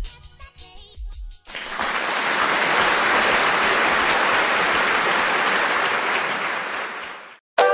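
Music with a beat stops about a second and a half in. A steady, even hiss follows, holds for about six seconds and cuts off suddenly.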